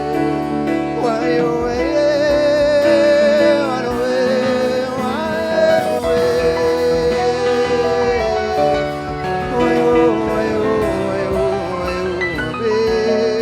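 A band playing a song, with a lead melody of long held notes that waver in pitch over sustained chords and a steady bass.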